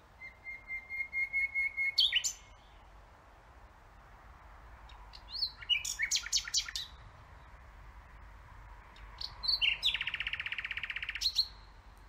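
Common nightingale singing three separate phrases a few seconds apart. The first is a run of repeated whistled notes that grows louder, the second a burst of sharp clicking notes, and the third a fast buzzing trill.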